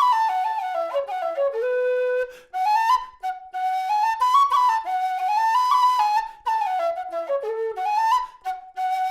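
Nightingale aluminium low whistle playing a folk melody in flowing phrases. The notes move up and down between the whistle's middle and upper range, with short breaks between phrases at about two and a half seconds in and again near six and a half seconds.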